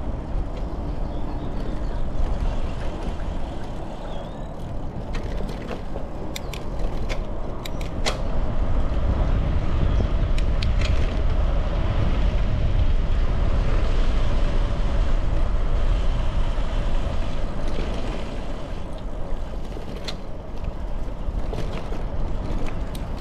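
Bicycle riding along an asphalt path: wind rushing over the handlebar-mounted microphone and tyres rolling, louder through the middle, with a few sharp clicks and rattles from the bike.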